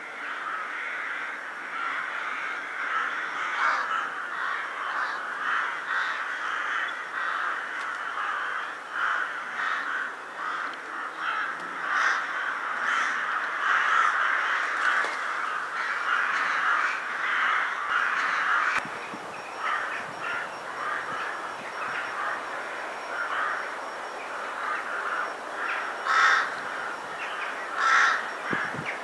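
A large flock of rooks cawing: a dense, overlapping chorus of calls that thins about two-thirds of the way through into more separate caws, with two louder caws near the end.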